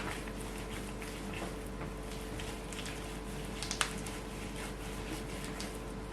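Soft handling noises of bread dough being worked by hand on a work surface: faint scattered taps and rustles, with one sharper click about four seconds in, over a steady electrical hum.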